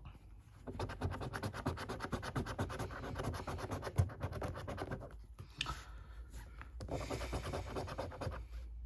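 Scratch-off lottery card being scratched in rapid, repeated strokes: two spells of scraping with a short pause about five seconds in.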